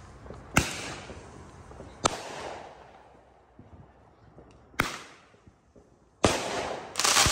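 Consumer aerial fireworks bursting: five sharp bangs a second or two apart, each trailing off in an echo. A denser, louder run of crackling bursts comes near the end.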